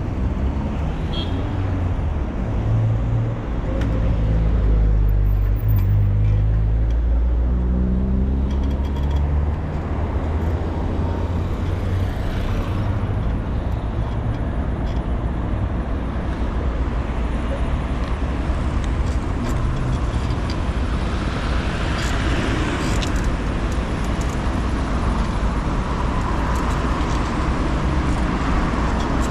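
City road traffic: a motor vehicle's engine rumbles close by for the first ten seconds, then steady traffic noise carries on.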